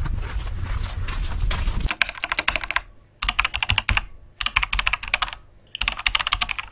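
After about two seconds of outdoor street noise, a computer-keyboard typing sound comes in as four quick bursts of rapid key clacks, separated by short pauses.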